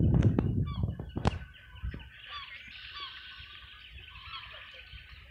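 Wind buffeting the microphone, with a few knocks, for the first second and a half, then a flock of birds calling on and on: many short, overlapping chirps and calls.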